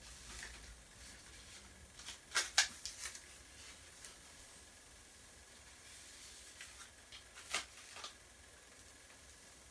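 A few sharp clicks and knocks from small hard objects being handled, in two brief clusters, the louder about two and a half seconds in and another about seven and a half seconds in.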